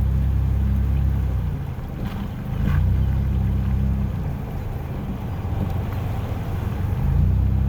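Low, steady rumble of a truck driving, heard from inside the cab, swelling and easing in loudness.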